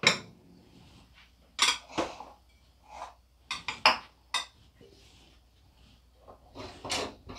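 Kitchen utensils clinking and knocking against dishes: about ten short, separate clinks spread over several seconds.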